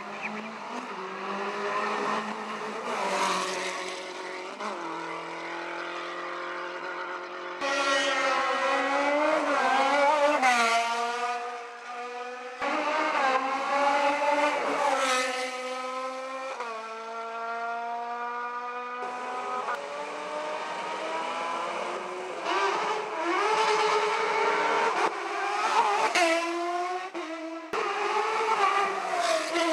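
Race car engine accelerating hard through the gears. The pitch climbs and drops sharply at each upshift, over and over, and is loudest from about eight seconds in.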